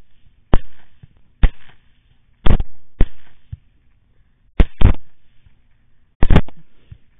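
Rapid rifle fire from several shooters: about eight sharp shots, irregularly spaced, some in quick pairs.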